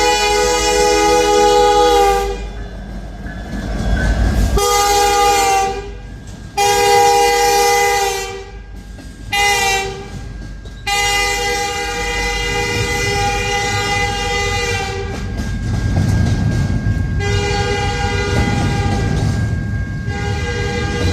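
Freight locomotive's multi-chime air horn sounding a series of blasts. In the middle come two long blasts, a short one and a long one, the pattern a train sounds at a grade crossing. After that the low rumble of the passing intermodal train comes in under another horn blast.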